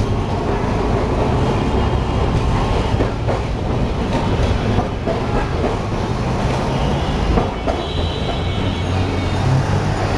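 Electric street tram of the Calcutta Tramways Company running along its street track, heard from aboard: a steady rumble and hum of the wheels and motors, with short clicks as the wheels pass over the rail joints. A faint high squeal of the wheels comes in late.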